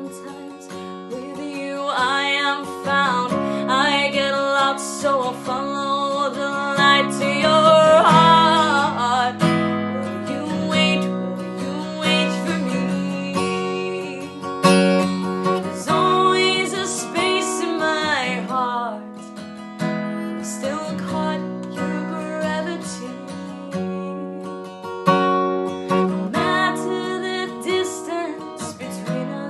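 A woman singing with a strummed acoustic guitar, the voice coming and going between phrases while the guitar chords carry on underneath.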